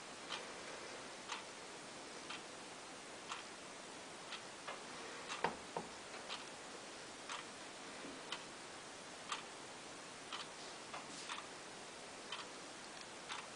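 Light, regular ticks about once a second, with two louder knocks a little past halfway.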